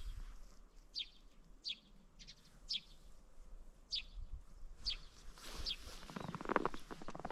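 A small bird calling with short, high chirps about once a second. From about six seconds in, crunching footsteps on frozen snow join in.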